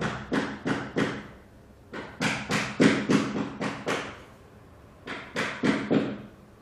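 Hammer blows in three quick runs of several strikes each, about three a second, with short pauses between the runs.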